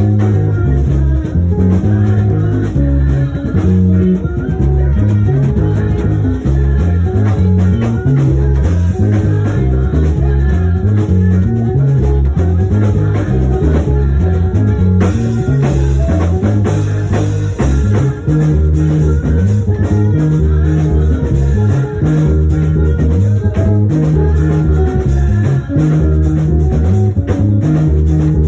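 Instrumental band music with a bass guitar line walking through changing low notes, over guitar and a drum kit.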